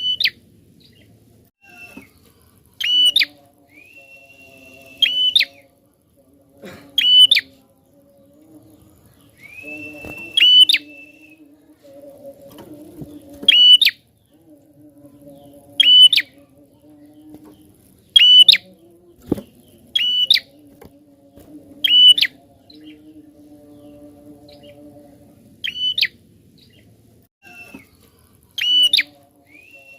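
Prenjak (prinia) calling over and over: a sharp, loud high chirp about every two seconds, with a few longer, level whistled notes in between.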